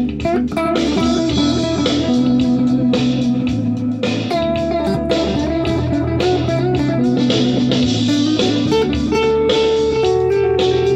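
Electric guitar being played: a run of picked notes, some of them held.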